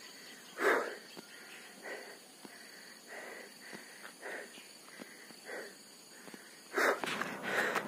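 A man breathing hard after a run, with short, heavy breaths through an open mouth about once or twice a second. One breath about a second in and two near the end are louder.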